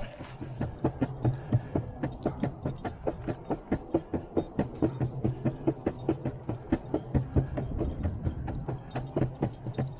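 Off-road skateboard's wheels rolling over a concrete sidewalk with a steady low rumble, clacking over the slab joints about three to four times a second.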